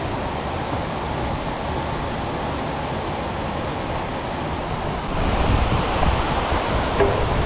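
Steady rushing noise with no clear tones; about five seconds in it gets louder, with more low rumble.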